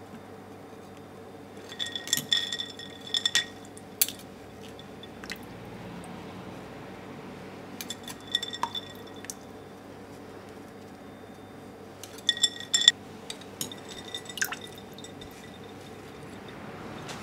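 Clinks against a glass bowl of ice water, with small splashes and drips, as wooden chopsticks fish broccoli florets out of it. The clinks ring briefly and come in three bunches, about two, eight and twelve seconds in, over a steady low hum.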